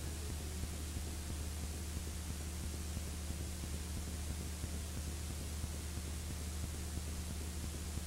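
Steady low electrical hum with an even background hiss and no other sound.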